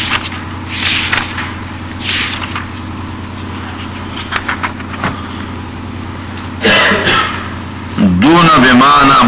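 Steady low hum with hiss from the recording and a few faint rustles; near the end a loud wavering pitched sound starts abruptly.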